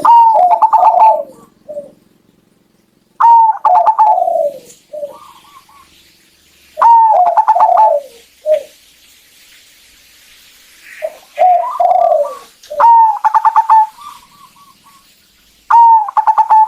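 Zebra dove (perkutut) singing: repeated song phrases, each a quick stuttering run of coos followed by lower trailing notes, about five times with short pauses between.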